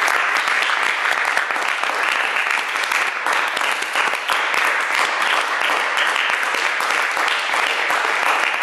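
Audience applauding: many hands clapping together in a steady, dense patter.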